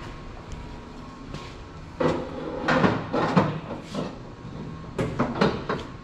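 A bent steel tube being handled and test-fitted: over a steady background hum, clattering and scraping of metal begins about two seconds in, followed by several sharp knocks near the end.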